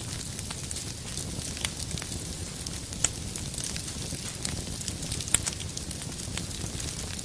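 Wood fire burning in a fireplace: a steady low rumble and hiss with irregular sharp crackles and pops, two louder pops about three and five seconds in.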